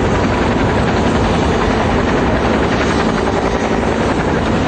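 Helicopter running close by, a loud, steady rotor and engine noise with no change in pace.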